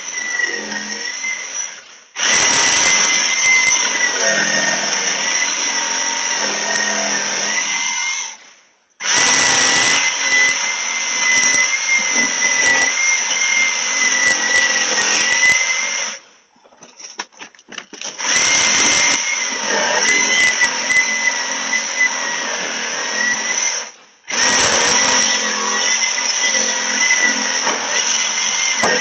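Power saw cutting through a Toyota Prius's exhaust pipe under the car to take out the catalytic converter. It runs in long stretches of about six seconds: a harsh cutting noise with a wavering whine over it. It stops briefly four times, with a few short stuttering starts in the longest pause.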